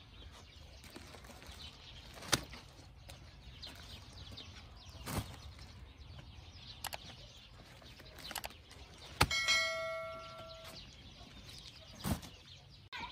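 Scattered knocks and taps, then about nine seconds in a sharp strike on a metal object that rings on for about a second and a half before fading.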